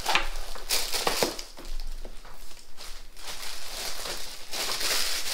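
Clear plastic packaging bag crinkling and rustling in irregular crackles as a T-shirt is pulled out of it.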